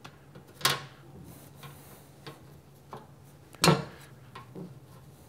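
Small clicks and taps of a plastic fan filter grille being handled and seated on a sheet-steel enclosure lid, with two sharp knocks, one just under a second in and a louder one just before four seconds.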